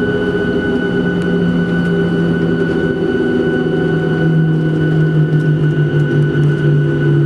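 Boeing 737-700's CFM56 jet engines running at taxi power, heard inside the cabin as a steady hum with a whine over it. About four seconds in, the low part of the hum drops slightly in pitch and the whole sound gets a little louder.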